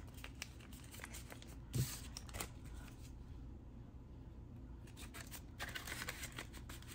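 Paper banknotes rustling and clicking as they are handled and counted out one by one, with a soft tap a little under two seconds in.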